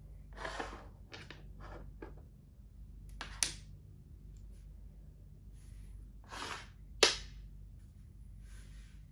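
Plastic makruk (Thai chess) pieces being picked up and set down on a board: two sharp clacks, one about three and a half seconds in and a louder one near seven seconds, with softer brushing noises between.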